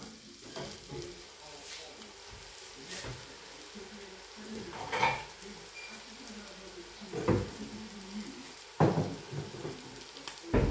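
Omelette and diced potatoes with onion sizzling in frying pans. About four sharp knocks break in partway through, the loudest two near the end.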